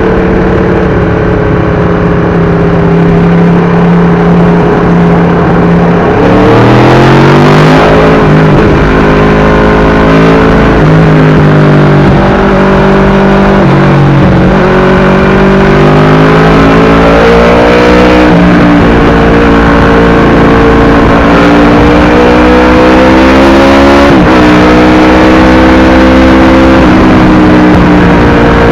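Aprilia RSV4 1000cc V4 superbike engine through an SC-Project exhaust, very loud. It runs at a steady note for about six seconds, then pulls hard, climbing in pitch several times with a sudden drop between climbs, as at upshifts.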